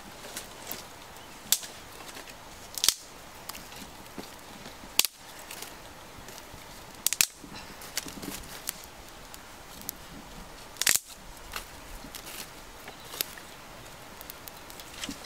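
Small fire of dry twigs and sticks crackling, with several loud sharp pops a couple of seconds apart among lighter crackles.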